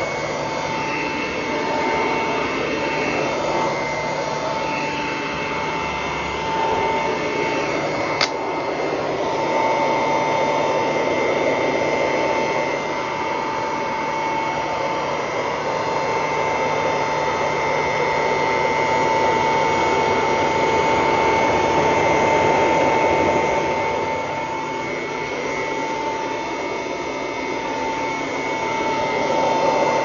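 1941 Kirby Model 4C upright vacuum cleaner running while it is pushed over carpet: a steady motor-and-fan whine over a rush of air, swelling and easing a little with the strokes. There is one sharp click about eight seconds in.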